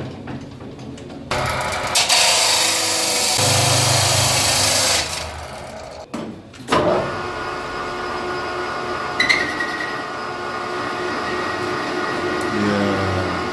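Metal-cutting circular saw cutting through a round metal bar: a loud, harsh cutting noise for a few seconds. About halfway through it gives way to a metal lathe running with a steady hum.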